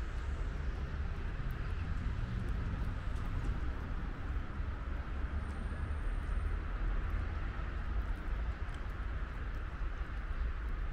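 Steady low outdoor rumble with an even hiss above it, unbroken throughout, with a faint thin high tone for a second or so about midway.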